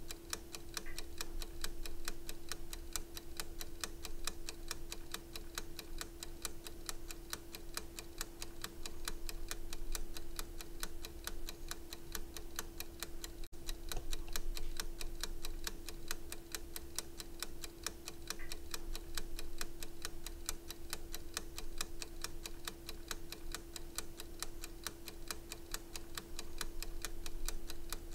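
Steady, even clock-like ticking, several ticks a second, over a constant low hum.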